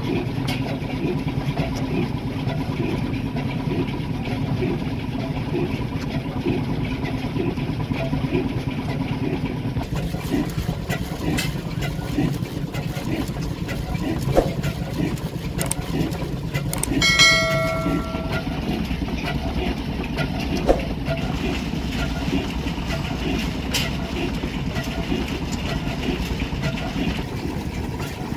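1905 Hornsby-Akroyd 6.5 hp single-cylinder hot bulb oil engine running steadily with a regular beat. A short pitched hoot of about a second sounds a little past halfway through.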